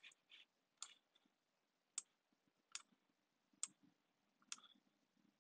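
Faint computer mouse clicks, five single clicks spaced about a second apart.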